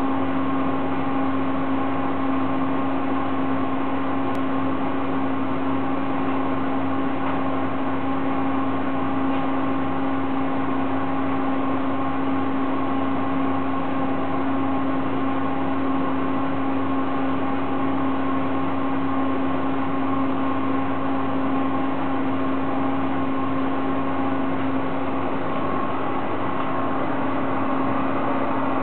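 Simpson electric tumble dryer running with its drum turning: a steady hum with one constant low tone and fainter higher tones over an even rushing noise.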